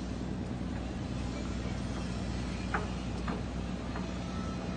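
Boat engine running at a steady low drone, with two brief sharp clicks a little past the middle.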